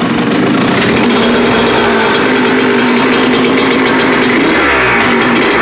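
Suzuki RM125 single-cylinder two-stroke dirt bike engine running steadily, with a brief dip and rise in pitch about four and a half seconds in.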